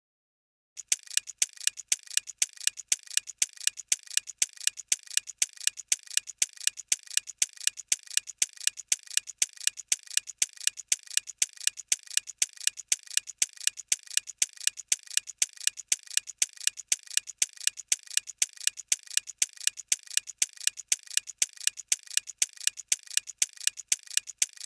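Clock-like ticking sound effect of a quiz countdown timer: rapid, evenly spaced ticks that start about a second in and keep a steady pace, counting down the answering time.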